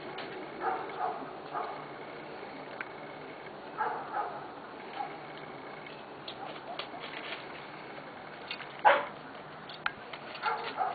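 Pembroke Welsh Corgi puppies, about four weeks old, giving short yips and whimpers every second or two, with a louder falling yelp about nine seconds in. A few light clicks come in between.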